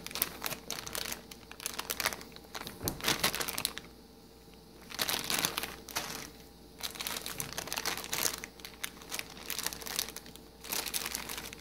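Clear plastic accessory bags holding cables being handled and shuffled on a table, crinkling in irregular bursts with brief lulls about four and six seconds in.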